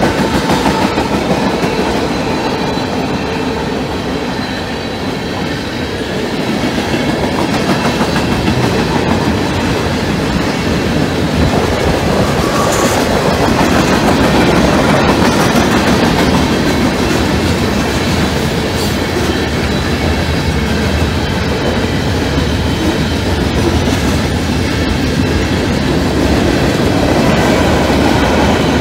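CSX mixed freight train cars rolling steadily past over the grade crossing: a continuous wheel-on-rail rumble with clickety-clack as the wheels cross the rail joints.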